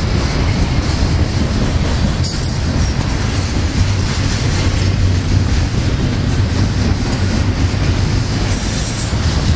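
Double-stack container train rolling past, its well cars making a loud, steady rumble of wheels on rail. Brief high-pitched wheel squeals come in a few times.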